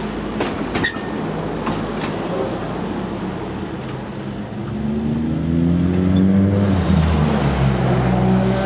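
Narrow-gauge railway coaches rolling past, their wheels clicking sharply over the rail joints. From about halfway an engine note rises in steps as a road vehicle accelerates through its gears, getting louder.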